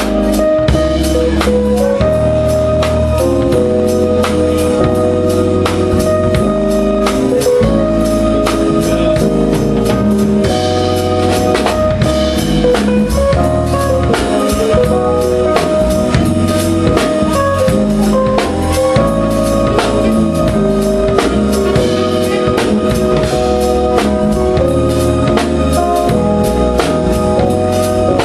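Live band playing: drum kit with snare and rimshot hits over organ-toned keyboards and electric bass, at a steady loud level.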